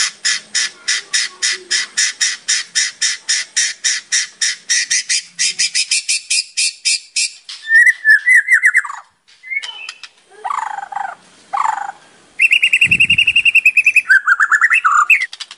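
White-rumped shama (murai batu) singing: a long run of rapid repeated notes, about five a second and quickening, then varied whistled phrases with a falling glide and a fast trill near the end.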